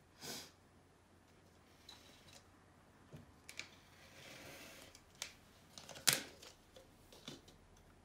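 Scattered light clicks and knocks of paint supplies being handled on a work table, with a soft rustle around the middle and one louder knock about six seconds in.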